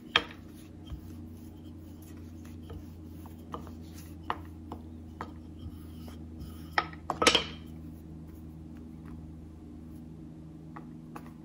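Wooden rolling pin rolling out a coiled pancake dough round on a wooden board, with scattered light knocks and clacks of the pin against the board; the loudest is a pair of knocks a little past halfway. A steady low hum runs underneath.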